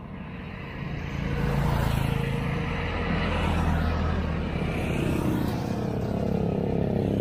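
Motor vehicle engine running close by on the bridge road, growing louder over the first second or so and then staying loud.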